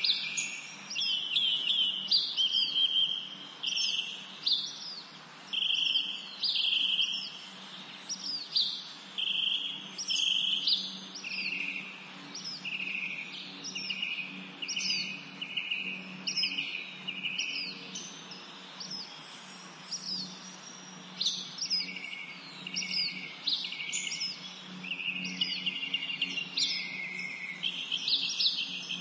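Birds calling over and over in high, short calls, each a quick downward sweep followed by a brief held note, one or two a second and often overlapping. They thin out briefly about two-thirds of the way through, and a steady low hum lies beneath.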